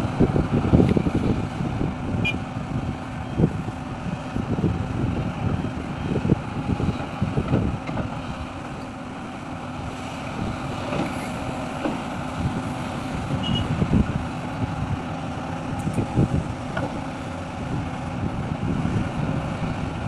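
Diesel engine of a large excavator running under varying load, its level rising and falling.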